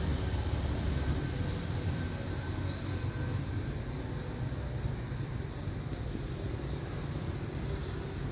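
A steady high-pitched whine over a low rumble, with a few faint short chirps.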